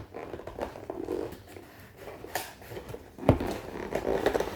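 Cardboard box being pried and worked open by hand: irregular scraping, rustling and clicking of cardboard, with a sharp knock about three seconds in.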